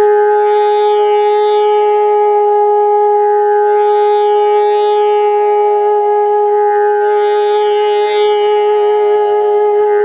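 A large bamboo bansuri in G sharp holding one long, steady Sa note over a tanpura drone tuned to G sharp, whose plucked strings shimmer in a repeating cycle. The flute's Sa sits well in tune with the drone, the sign of a well-pitched flute.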